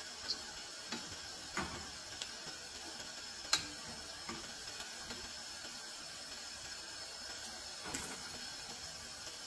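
Çubuk pişi dough sticks deep-frying in hot oil, a steady sizzle, with scattered clicks of metal tongs against the pot and the pieces as they are turned. The sharpest click comes about three and a half seconds in.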